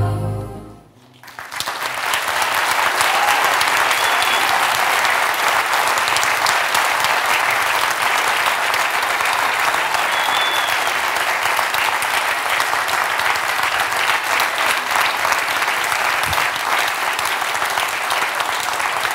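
The film's soundtrack music ends about a second in, and a large audience breaks into loud, sustained applause that carries on steadily.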